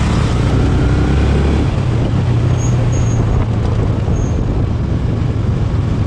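Motorcycle engine running steadily while riding, over a constant rush of wind and road noise.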